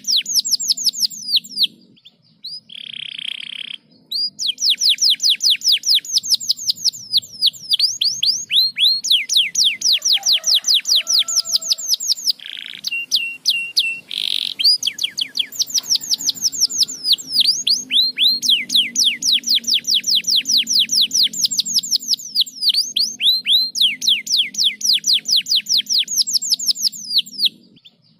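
Domestic canary singing long, rapid trills of quick falling notes. The trills are broken by a few short pauses and a few harsh rasping notes.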